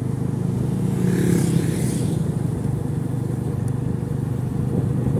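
Motorcycle engine running steadily at road speed. About a second in, another vehicle passes close by with a brief swell of noise.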